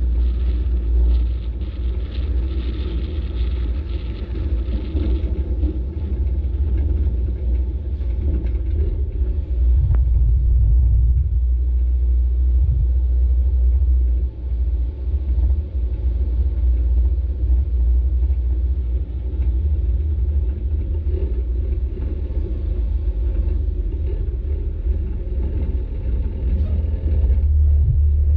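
Flatbed tow truck driving: a steady low rumble of engine and road noise, strongest in the deep bass.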